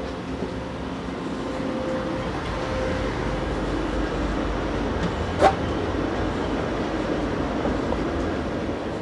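Steady rumble and hum inside a railroad passenger car, swelling while passing through the vestibule between cars, with one sharp clank about five and a half seconds in.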